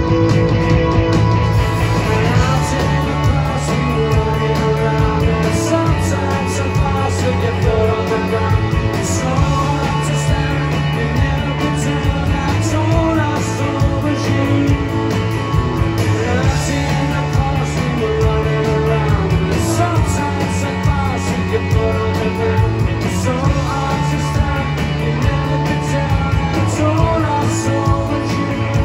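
A live indie rock band playing: two electric guitars, electric bass and a drum kit with cymbals, amplified through the venue's speakers, the bass notes changing every couple of seconds.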